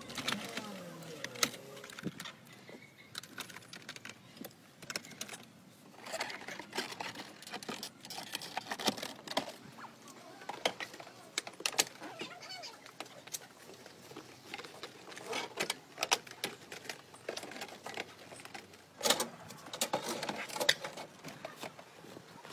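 Irregular clicks, knocks and rattles of plastic and metal interior parts being handled and fitted into an old Mercedes-Benz sedan: dashboard trim and the front seat being pushed into place, with the loudest knocks near the end.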